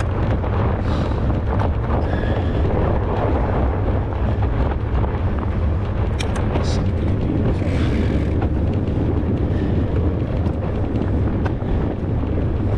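Steady wind rumble on the microphone over the noise of a fat bike riding through fresh snow, with a few sharp clicks about six seconds in.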